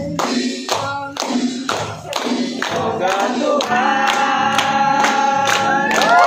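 A group of people singing a birthday song together and clapping in time, about two claps a second. The singing settles into long held notes in the second half.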